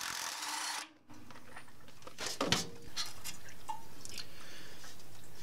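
A cordless impact driver spins a socket on a water heater's anode rod fitting, backing the old rod out, then stops abruptly about a second in. After that come a few light clicks and scrapes as the loosened rod is lifted up out of the threaded port.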